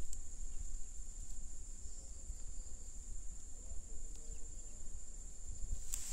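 Insects droning steadily at a high pitch, over a low rumble.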